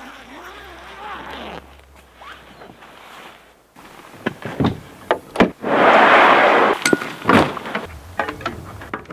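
Handling sounds of bike gear: a run of sharp knocks, thunks and metallic clinks, with a louder rushing noise lasting about a second, about six seconds in. Faint wavering whistle-like tones come in the first second or two.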